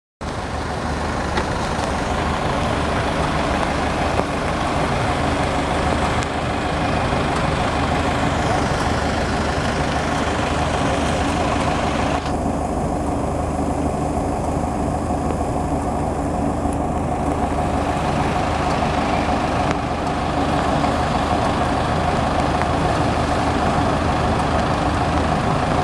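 Stopped traffic idling: a steady low engine hum from a queue of waiting vehicles, among them a minibus close by, over an even wash of road noise.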